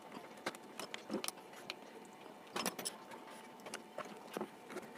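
Scattered small clicks and taps of a screwdriver, loose screws and the plastic housing of a motorized ball valve's actuator being handled during disassembly, with a louder cluster of clicks about two and a half seconds in.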